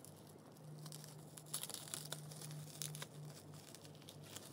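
Bubble wrap crinkling and packing tape tearing as hands pull the wrapping off a parcel, with a few sharp crackles over a faint steady low hum.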